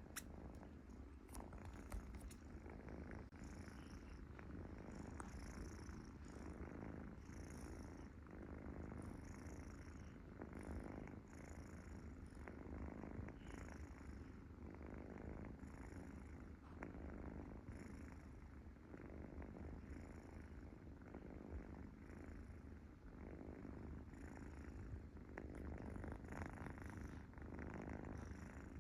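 A cat purring steadily, with short faint high-pitched sounds every second or so.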